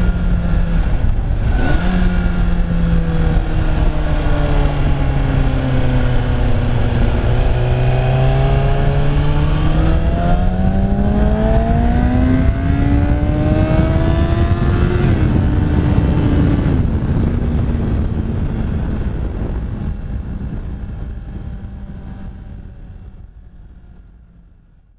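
2013 Kawasaki Ninja ZX-6R 636 inline-four engine running as the bike is ridden, with wind rush. Its pitch sinks and then climbs again through the middle as the bike slows and speeds back up, then steps down twice. The sound fades out over the last few seconds.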